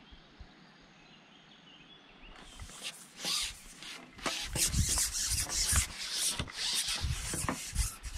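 Close rubbing and scraping on the camera's microphone in many quick scuffs, starting about two seconds in after a faint, quiet background.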